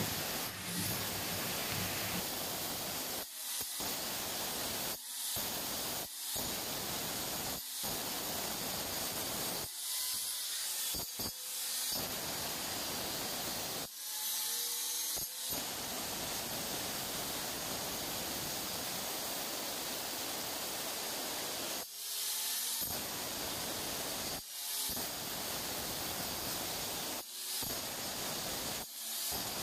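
Handheld angle grinder grinding the cut edge of a granite countertop's sink opening: a steady gritty grinding hiss, broken by short breaks every few seconds.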